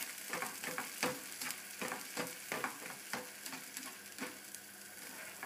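Omelette egg mix sizzling in butter in a small Teflon frying pan over high heat, with a spatula scraping and knocking against the pan about two to three times a second as the setting egg is moved around. The strokes thin out near the end.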